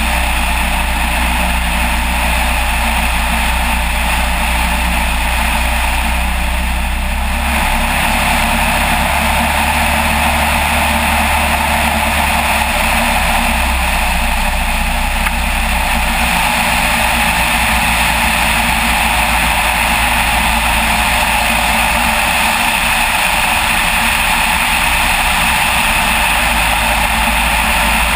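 Single-engine light aircraft in flight, its piston engine and propeller running steadily under heavy airflow noise on the outside-mounted camera. The engine note shifts slightly about seven seconds in.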